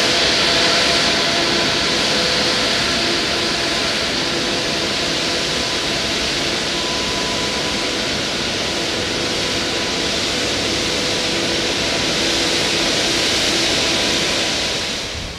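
Airbus A350's Rolls-Royce Trent XWB engines running as the airliner rolls along the runway: a steady rush of jet noise with a faint whine. The sound drops off abruptly near the end.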